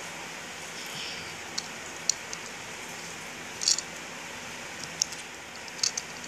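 Plastic LEGO plates and bricks clicking as they are handled and pressed together by hand, a few sharp clicks with the loudest cluster about halfway through, over a steady hiss.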